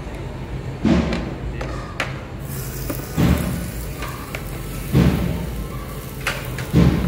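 Four dull thumps, roughly two seconds apart, over a steady low hum.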